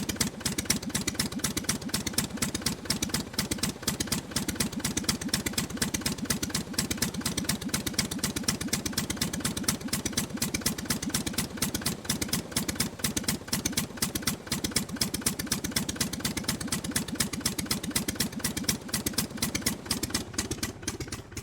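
Aircraft engine running steadily on the ground with a rapid, even firing beat.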